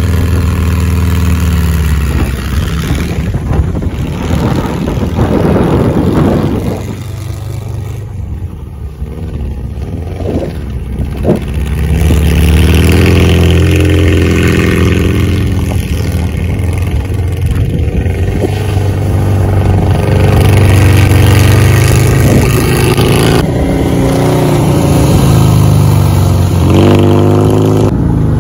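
VW Beetle baja bug's air-cooled flat-four engine revving as the car is driven hard, its pitch rising and falling with the throttle. It fades for a few seconds about a third of the way in as the car pulls away, then grows loud again as the car comes back close.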